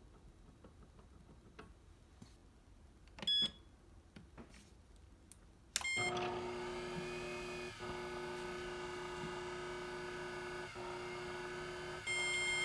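Kuvings SV500 vacuum blender: a control-panel beep, then about halfway through its vacuum pump starts and runs with a steady hum, ending in another beep near the end.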